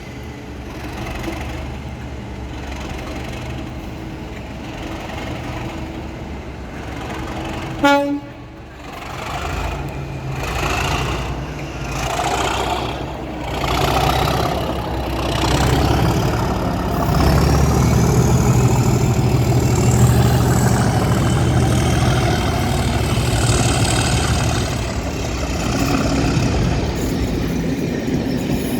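Class 37 diesel locomotives' English Electric V12 engines ticking over, then a short single horn tone about eight seconds in. The engines then power up in surges about once a second and settle into a steady loud drone as the train pulls away, with a high whistle rising and falling over it near the end.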